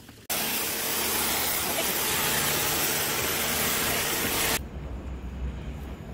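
High-pressure water jet spraying the side of a railway coach: a loud, steady hiss that starts abruptly and cuts off sharply about four and a half seconds in, leaving a low rumble.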